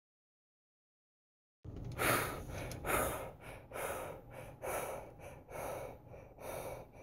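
A person breathing hard, rapid gasping breaths about one a second, starting after about a second and a half of silence.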